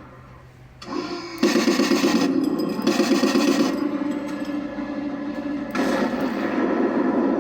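The OKMO M60 RC tank's sound unit playing its commander's-cupola machine-gun sound effect: after a near-quiet first second, a rapid firing burst of about two seconds, then a steadier continuing sound that grows louder again near the end.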